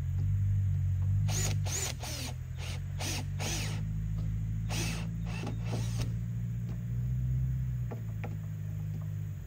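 Cordless drill running steadily as it drives a screw into a small piece of pallet-wood siding, with a run of sharp clicks between about one and six seconds in. The motor stops near the end.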